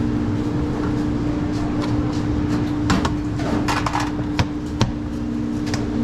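Steady hum of kitchen equipment with a low rumble, and a few short clicks and knocks of food-prep handling in the second half.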